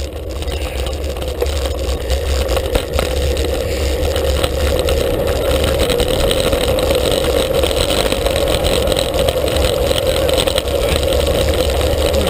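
Wind rushing over an action camera's microphone on a fast road-bike descent, a steady low rumble and hiss that grows louder over the first few seconds as speed builds.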